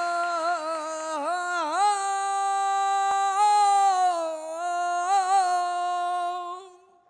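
A flamenco cantaor singing one long wordless held vowel with wavering, ornamented turns in the pitch, unaccompanied. It stops sharply near the end.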